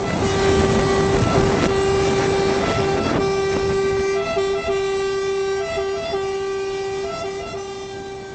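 Emergency vehicle siren holding a steady high tone with short breaks and brief higher blips, growing louder over the first second and slowly fading toward the end. Rough vehicle noise runs beneath it in the first few seconds.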